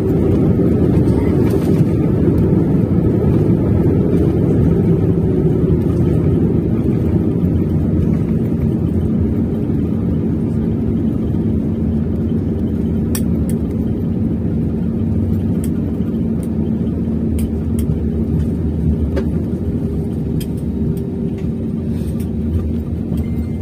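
Steady low drone of an airliner's engines and the rumble of its wheels rolling along the runway, heard from inside the cabin, with a steady hum and a few light clicks in the second half.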